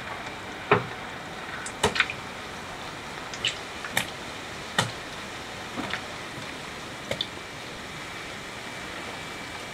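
Potato sticks deep-frying in hot oil in a pot: a steady sizzling hiss with sharp pops and crackles, roughly one a second over the first seven seconds.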